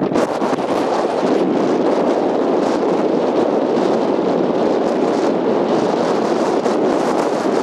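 Wind buffeting the camera microphone: a steady, loud rushing noise with no pitched tone.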